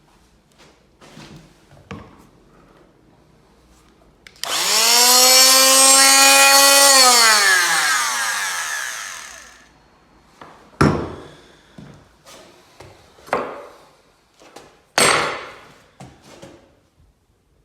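An electric power tool's motor spins up, runs at a steady pitch for about two and a half seconds, then is switched off and winds down over a couple of seconds. A few sharp knocks follow.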